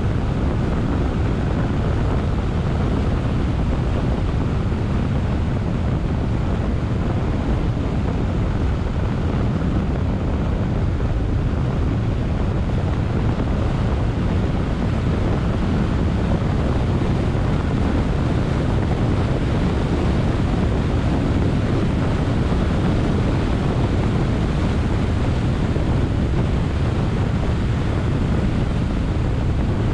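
Steady wind and tyre-on-road noise from a car driving along at speed, a constant low rumble with no separate engine note or other events standing out.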